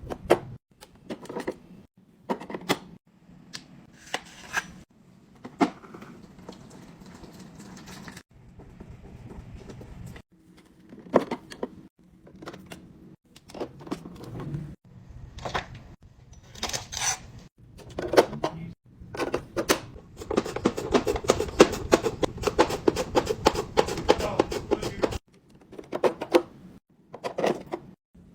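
Fridge restocking: containers, jars and packages knocked and clicked as they are handled and set down on shelves, with a long, rapid rattle of many small items about two-thirds of the way through.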